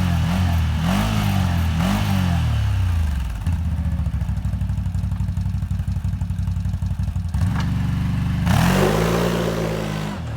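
2021 CFMOTO CForce 1000 ATV's V-twin engine being blipped. There are a few quick revs over the first two seconds, then it settles to a steady idle. Near the end it gives a short blip, then a longer rev held for about two seconds before dropping back.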